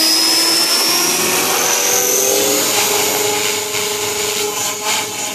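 Electric JR Forza 450 RC helicopter spooling up on its 3,500 kV motor: a high motor whine and the whir of the main and tail rotors rise in pitch over the first three seconds, then hold steady as it lifts off into a hover.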